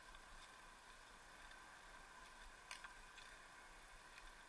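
Near silence: faint steady hiss with a few faint, scattered clicks, the clearest a little past halfway.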